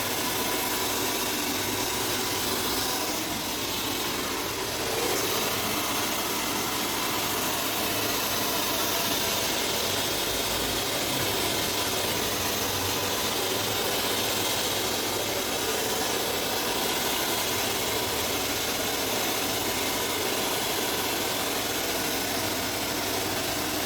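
A small motor running steadily, with a loud, even rushing noise.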